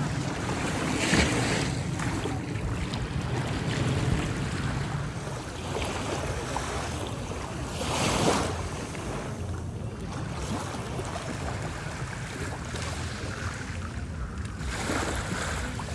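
Small waves washing onto a sandy shore, the wash swelling about a second in, again around eight seconds and near the end, with wind buffeting the microphone underneath.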